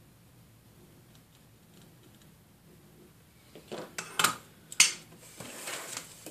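Small hand tools clatter down onto a wooden workbench, with several sharp knocks about four to five seconds in, then a short scrape as a stereo microscope is slid across the desk into place. Before that only faint ticks of delicate work with tweezers.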